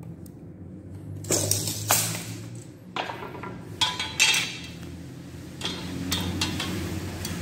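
Irregular sharp knocks and clinks of wooden slats and a carpenter's square being handled, starting about a second in, over a low steady hum.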